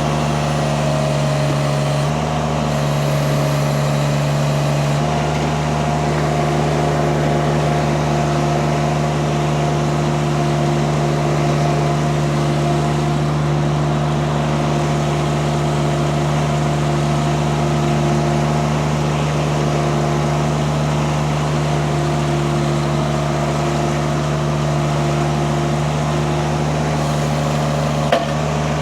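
Mini skid steer's engine running steadily, its note shifting slightly about two seconds in and again about five seconds in. A short click near the end.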